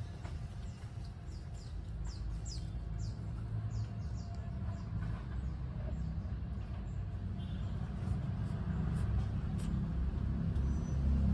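Steady low rumble of outdoor traffic, with a quick run of short, high, falling bird chirps from about one to three and a half seconds in.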